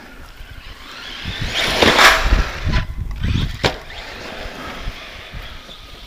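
Brushless 4WD RC truggy driving hard across rough yard ground: motor and tyre noise builds to its loudest about two seconds in, followed by two sharp knocks as the truck bounces over the ground, then settles as it runs off into the distance.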